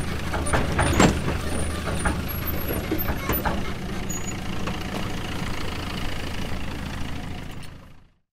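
Excavator engine running steadily, with scattered metallic clanks and knocks; the loudest knock comes about a second in. The sound fades out near the end.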